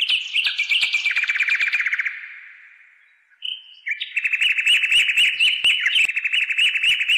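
A songbird singing two long, rapid, high trills. The first fades out after about two seconds; the second starts about three and a half seconds in and cuts off suddenly.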